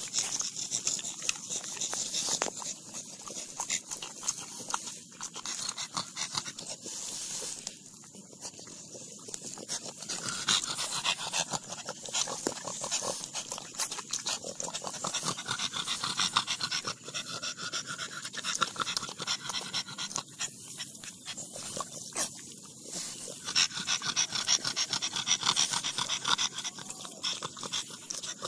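French bulldog panting with its mouth open while biting and chewing leaves off a potted plant, the stems and leaves rustling, heard as a dense crackle of small clicks over the breathing.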